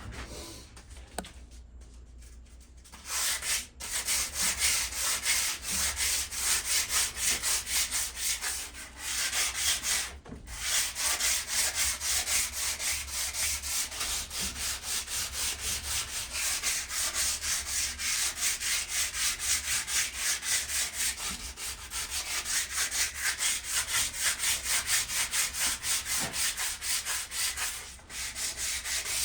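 Sandpaper rubbing back and forth over the rusted metal of a patio table in quick, even strokes, taking off surface rust. It starts about three seconds in and stops briefly twice.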